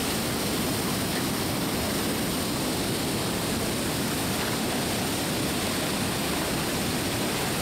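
Steady rushing of water pouring through a dam's spillway gates and running fast through the shallow channel below.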